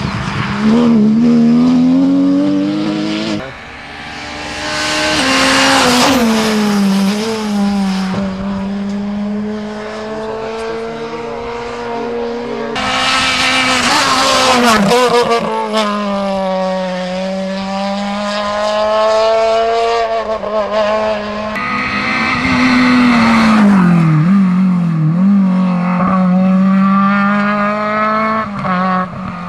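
Rally cars at full speed on a stage, one after another, their engines revving hard and rising and falling through gear changes and lifts for corners. The sound cuts from one car to the next about every eight to nine seconds.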